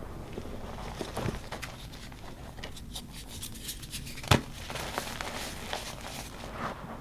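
Reformed gym chalk being crumbled and crushed: a run of small crunches and crackles, with one sharp, loud crunch about four seconds in.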